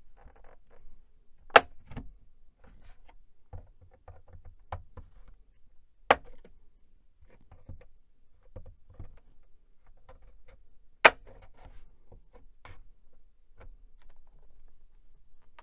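A metal screwdriver prying at a computer's plastic back cover: small scrapes and clicks throughout, with three sharp plastic snaps about five seconds apart.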